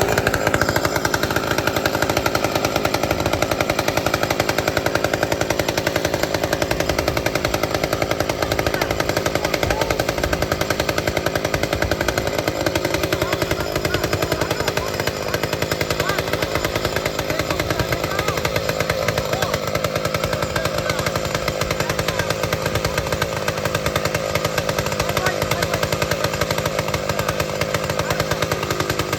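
Old McCulloch two-stroke chainsaw running steadily at high speed, its engine buzzing without a break.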